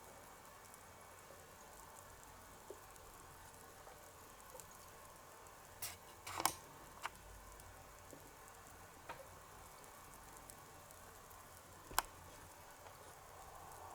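Faint steady hiss with a few sparse, small, sharp clicks and taps of tiny toy kitchenware being handled; the loudest click comes about halfway through and another near the end.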